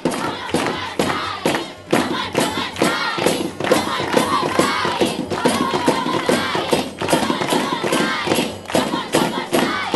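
A group of schoolgirls cheering: many voices chanting and shouting together over quick, repeated hand claps.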